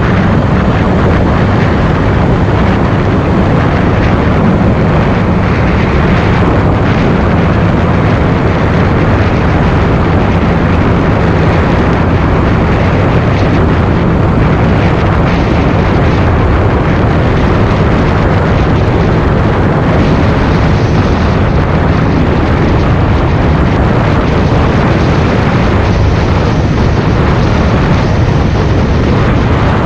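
John Deere 8430 tractor's six-cylinder diesel engine running steadily as the tractor drives along a road at speed.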